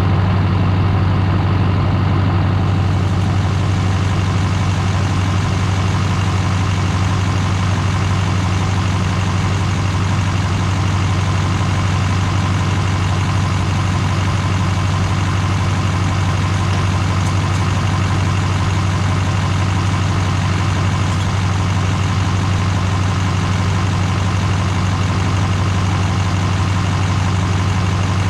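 LMM Duramax 6.6-litre V8 turbo-diesel idling steadily, the newly installed replacement engine.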